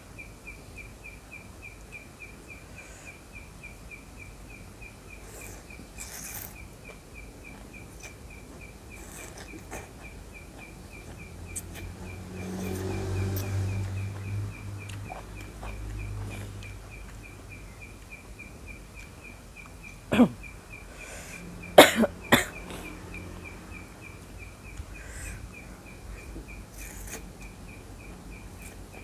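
Outdoor ambience with a steady, rapidly pulsing high chirp throughout. A low rumble swells and fades around the middle, and three sharp, loud sounds come close together about two-thirds of the way in.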